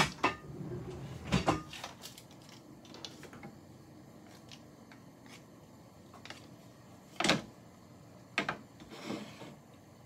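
Scattered knocks and clicks as kitchen things and wooden cutting boards are handled and set down on the counter, loudest about a second and a half in and about seven seconds in.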